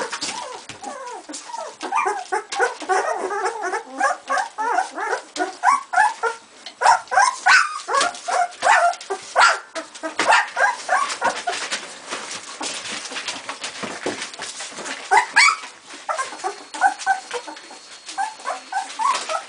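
Two-week-old puppies squealing and whimpering in rapid, short, high squeaks, with scattered clicks and rustles. One louder, rising yelp comes about fifteen seconds in.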